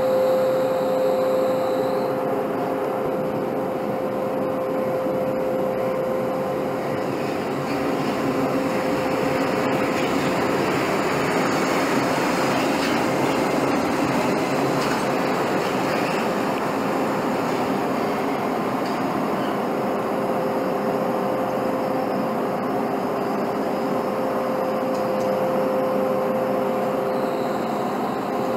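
ÖBB Class 1044 electric locomotive passing slowly at close range. A steady electrical hum is joined by rumbling wheel and rail noise that swells around the middle as the locomotive goes by.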